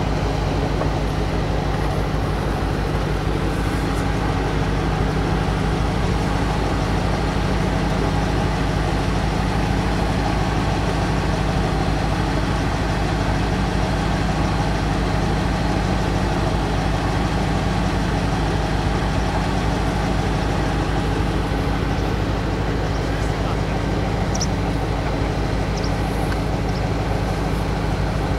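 Vehicle engine idling steadily, a low even drone that holds one pitch throughout.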